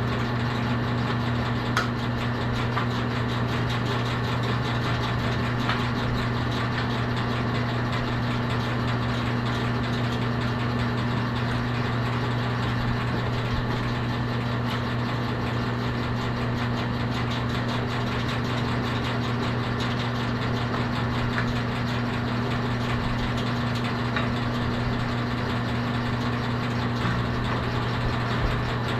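A motor or engine running steadily, with a constant hum that never changes in pitch, and a few faint clicks over it.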